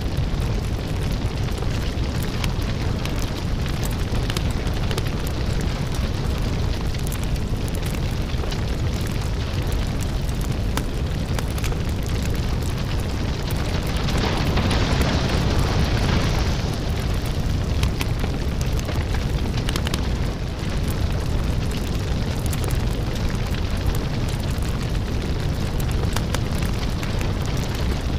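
Big fire burning: a steady low rumble of flames with dense crackling, swelling louder for a few seconds about halfway through.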